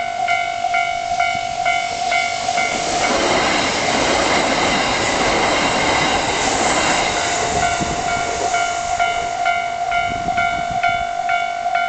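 A Japanese level crossing's alarm rings, about two strokes a second over a steady tone, while a Kintetsu Nagoya Line train runs through the crossing from about three seconds in to about eight and a half, its wheel and rail noise drowning the bell. Once the train has gone by, the alarm keeps ringing.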